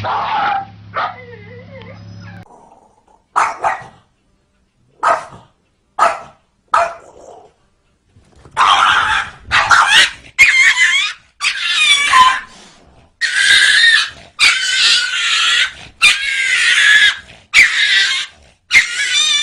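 Dogs barking and yelping in a fight: a few short, sharp barks, then a run of long, wavering high-pitched cries about once a second.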